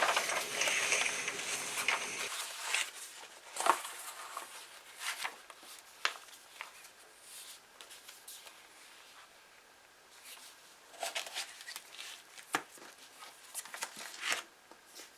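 Paper of an old book being handled and its pages turned: a dense run of rustling over the first couple of seconds, then scattered single page rustles and light taps.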